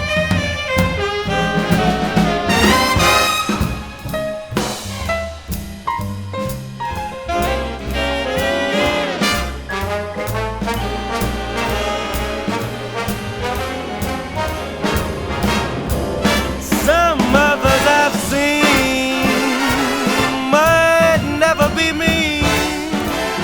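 Instrumental break of a big-band swing arrangement: brass playing the melody over a walking bass and drums keeping a steady beat. In the second half, long wavering held notes carry the line.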